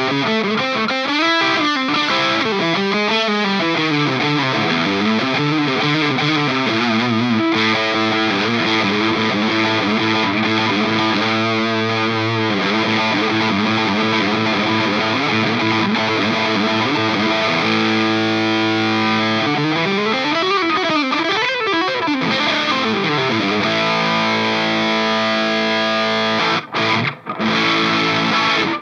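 Electric guitar played through a Nux Plexi Crunch, a Marshall-style crunch overdrive pedal, into a Kelt Mostro Redhead amp and 2x12 cabinet, giving a distorted crunch tone. Riffs with bent notes give way to held chords, with two short breaks near the end.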